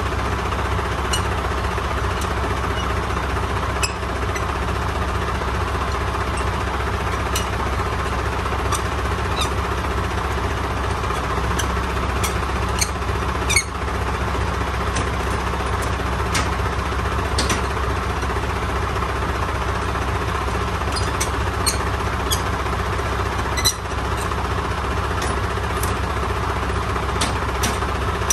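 Semi-truck diesel engine running steadily, with scattered short squeaks and clicks over it.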